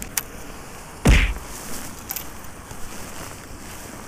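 A light click, then about a second in a single short, loud swoosh with a heavy thump: a baitcasting rod being cast.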